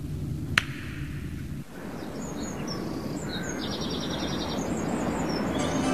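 A single sharp click about half a second in over a low hum. From about two seconds in, a steady outdoor noise bed slowly grows louder, with short high bird chirps over it.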